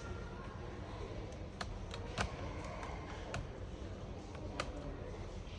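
A handful of light, sharp clicks and taps from small laptop parts, screws and tools being handled during reassembly, over a steady low hum.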